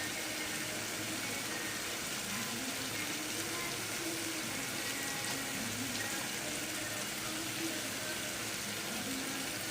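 Egg curry gravy boiling in a pan on the stove, a steady, even bubbling hiss.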